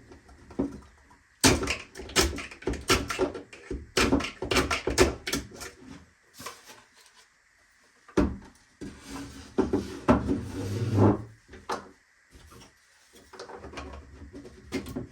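A 3D-printed plastic part being handled while leftover support material is picked and broken out of it: irregular runs of sharp plastic clicks and knocks, with a stretch of scraping about nine to eleven seconds in.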